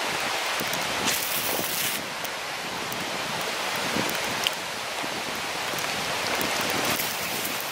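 A river rushing over rocks, making a steady hiss of running water.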